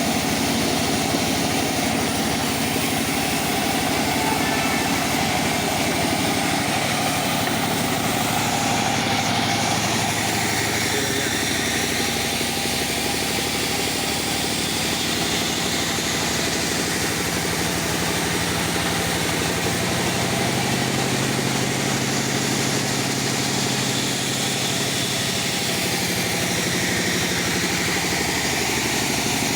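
Circular-saw sawmill rig (mesin serkel) running steadily, its motor humming under a dense whirring noise. The pitch of the hum shifts a little partway through.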